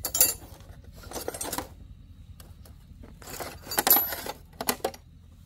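Metal parts clinking and rattling in four short bursts, the loudest near the end with a brief high ring, over a steady low hum.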